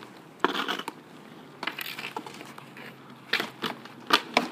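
Roller hockey play on an asphalt driveway: hockey sticks clacking against the pavement and the ball, with irregular sharp knocks that bunch together in the last second and a half.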